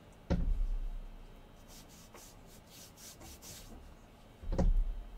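Two dull thumps, each followed by a short low rumble, one just after the start and one near the end, with faint rubbing between them.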